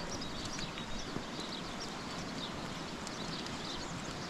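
Sheep and goats moving about, with scattered small knocks and short high chirps over a steady hiss.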